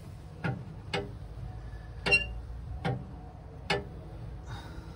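A series of sharp clicks at uneven intervals, roughly one a second, over a low steady hum.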